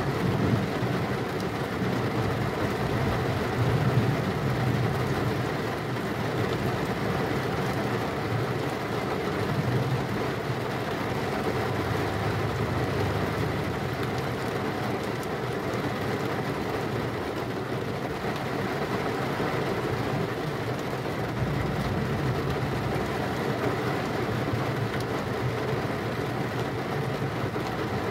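Heavy rain falling steadily, with slow swells of low thunder rumbling under it, notably about twelve seconds in and again about twenty-one seconds in.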